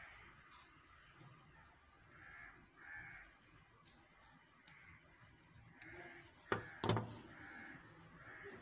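Small aluminium crossbow-trigger parts and a coiled spring being handled: faint fiddling, with two sharp clicks close together about six and a half seconds in. A bird calls faintly several times in the background.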